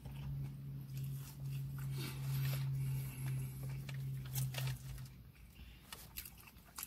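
Close-up eating sounds: a man chewing, with wet mouth clicks. Under them runs a low steady hum that stops about five seconds in.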